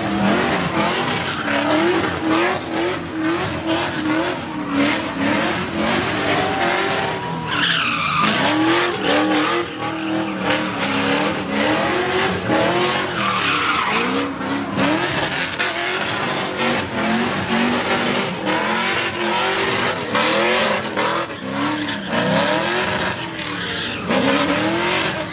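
Car doing a burnout: the engine revs up and down again and again over the screech of spinning tyres.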